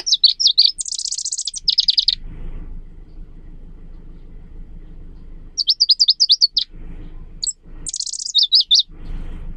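Caged leaf warbler singing: three short bursts of rapid, high, trilling notes, one at the start, one about six seconds in and one near the end. A low background rumble fills the gaps between the phrases.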